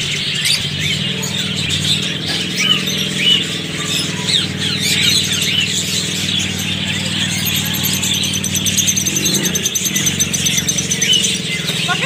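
A crowd of caged parakeets chirping and chattering in many short high calls, over the steady hum of a motorcycle engine running close by, which eases off about ten seconds in.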